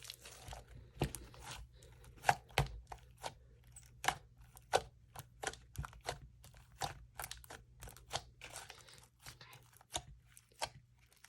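Homemade slime being squished and stretched by hand, making irregular sharp clicks and pops, a few each second.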